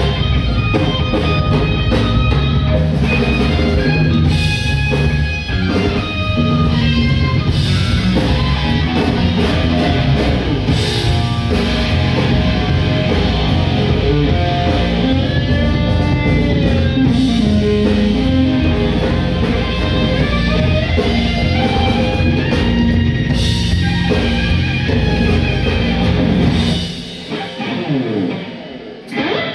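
Live rock band playing an instrumental passage: electric guitar solo with bending notes over bass guitar and drum kit. Near the end the low end drops away and the guitar carries on more quietly with sliding notes.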